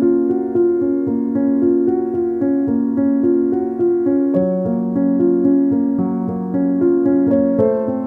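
Background music on a piano-like keyboard, notes and chords struck at an even pace.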